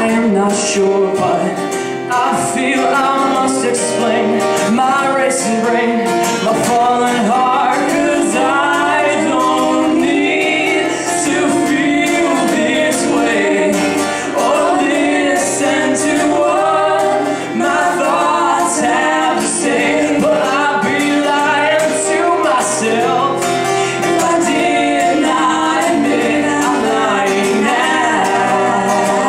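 A band playing a song live, with sung vocals over the instruments.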